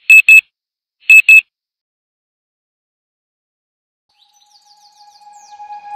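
Alarm clock beeping in quick electronic double beeps, one pair about a second after the other, then stopping. Near the end, light music begins to fade in.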